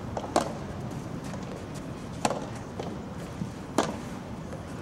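Soft tennis rally: a rubber soft-tennis ball struck by rackets three times, about every one and a half seconds, with fainter ticks between the hits.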